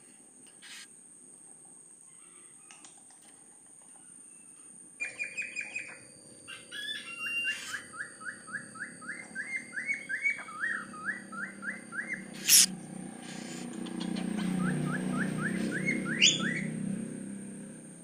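Cockatiel chirping: runs of short, rising whistled notes at about three a second, starting about five seconds in and returning briefly near the end. A sharp click about halfway through is the loudest sound.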